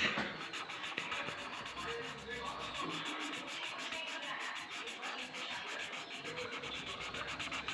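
Sketch pen scribbling on paper: rapid, steady scratching strokes as a shape is coloured in.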